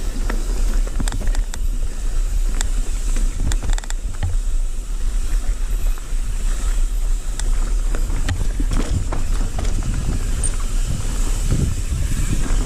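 Wind buffeting a handlebar-mounted camera's microphone as a mountain bike rolls down a dirt trail, with many short rattles and clicks from the bike over the bumps.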